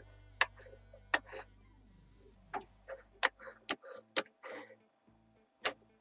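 Magnet balls clicking sharply against each other as blocks of them are snapped together, several separate clicks with softer sliding scrapes in between, over background music.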